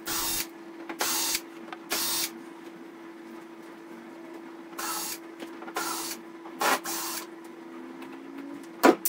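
Cordless drill/driver run in about eight short bursts, a third to half a second each, with a sharp click near the end.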